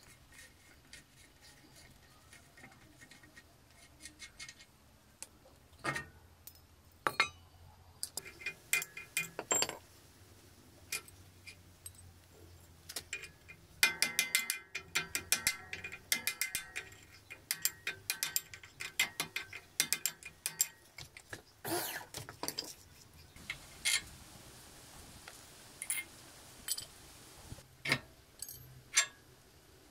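A ratchet wrench clicking as it turns the steering stem nut on a motorcycle's lower triple clamp, with a dense run of rapid clicks about halfway through. Scattered metallic clinks and knocks of tools on the part come before and after.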